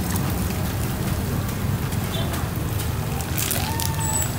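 Chicken wings deep-frying in a large wok of hot oil: a steady sizzling and bubbling, stirred by a wire spider, with a low rumble underneath and a brief clatter about three and a half seconds in.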